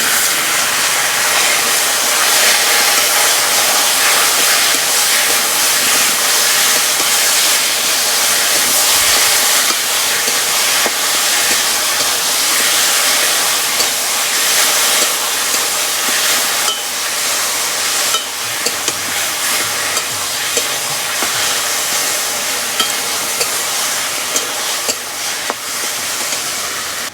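Boiled taro leaves sizzling loudly in hot mustard oil in a karahi as they are stirred, with scattered clicks in the second half; the sizzle eases slightly over time.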